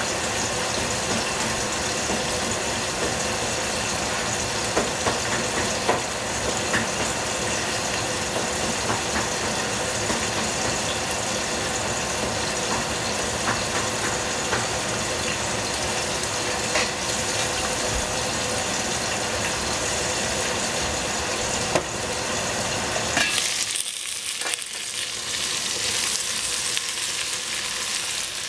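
Cut squash cooking in a covered stainless steel pot on the stove: a steady sizzle with small scattered pops. About 23 seconds in the lid comes off with a clack, and the sizzle turns thinner and hissier while more squash is added by hand.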